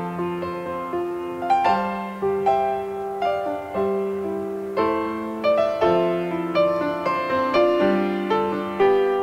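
Background piano music: a slow melody of single struck notes, each ringing and fading before the next. No aircraft sound is heard over it.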